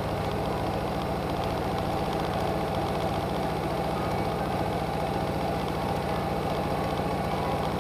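Car engine running steadily at low road speed, heard from inside the cabin, with an even low pulsing throughout.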